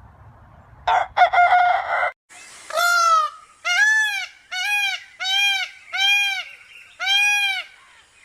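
An animal calling: a harsh, rough cry about a second in, followed by six evenly spaced calls that each rise and fall in pitch.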